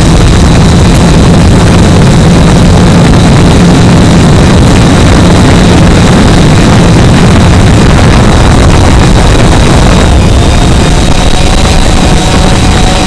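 Quadcopter's brushless motors and propellers, heard from the camera mounted on the drone itself: a loud, steady drone with a thin high whine over a rushing noise, easing slightly near the end.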